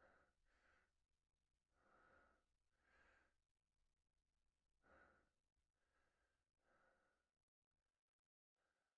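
Very faint, shaky breathing of a frightened woman: about eight short breaths and sighs, with a brief drop to silence near the end.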